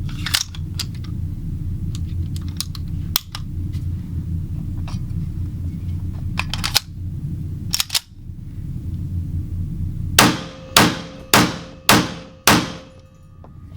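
Metal handling clicks, then five pistol shots in quick succession, about half a second apart, from an EAA Tanfoglio Witness pistol fitted with its .45 ACP conversion kit. A steady low hum runs underneath.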